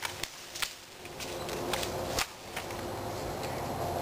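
Airsoft pistol shots: a handful of sharp, irregularly spaced cracks, the loudest a little after two seconds in.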